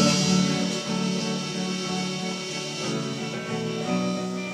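Guitar playing held, ringing chords that slowly fade in level.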